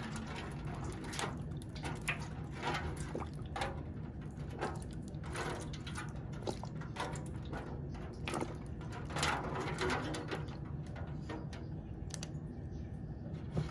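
Liquid smoke being poured from a bottle into a disposable aluminium foil pan, with many short splashes and drips onto the foil.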